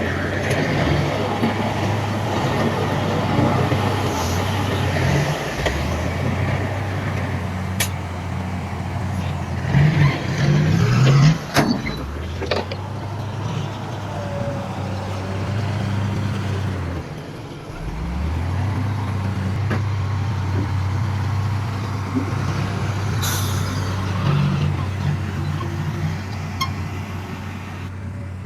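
Heavy diesel earthmoving machinery running with a steady low engine drone that dips briefly past the halfway point and then picks up again. Sharp clanks and knocks come around ten to twelve seconds in, the loudest moments, and a short hiss sounds later.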